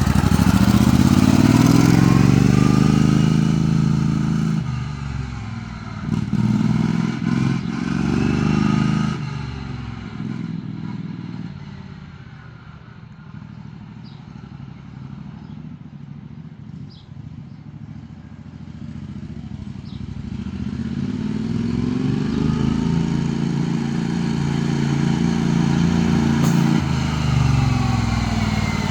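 Sears Suburban riding mower's 16 horsepower Vanguard V-twin running hard with its revs rising and falling. It grows fainter after about ten seconds as it moves away, then gets louder again as it comes back.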